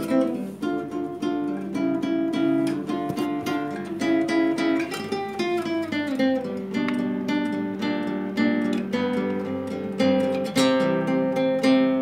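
Nylon-string classical guitar played solo with the fingers: plucked notes and strummed chords, with a phrase sliding down in pitch about five seconds in.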